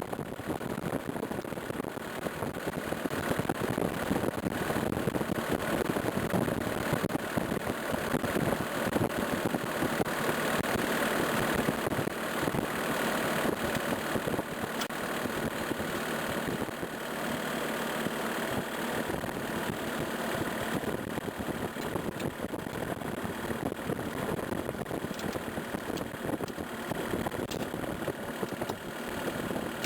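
Skid steer loader's engine running steadily, a little louder for several seconds in the middle.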